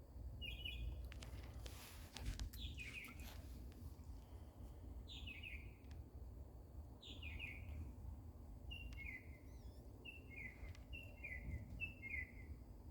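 A northern mockingbird singing: short, falling chirped phrases, the last one repeated four times in quick succession near the end, over a steady low background rumble.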